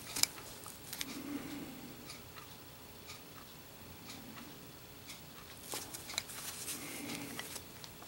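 Faint handling noise: leather work gloves rubbing against a polished metal Zippo lighter case and light clicks as it is turned over in the hands, with a sharp click just after the start and a cluster of clicks near the end.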